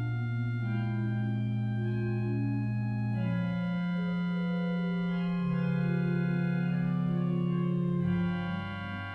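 Quimby pipe organ playing slow, sustained chords over long-held bass notes, the harmony changing every few seconds.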